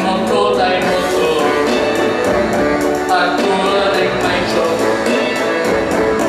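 Music with a steady beat and a voice singing over it.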